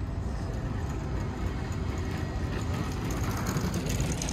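City street ambience: a steady low rumble of traffic, swelling briefly about three seconds in.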